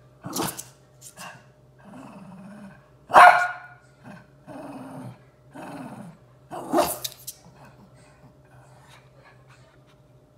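Shih tzus squabbling over a dog bed: low growls broken by three sharp barks a few seconds apart, the loudest a little over three seconds in; it goes quieter after about seven seconds.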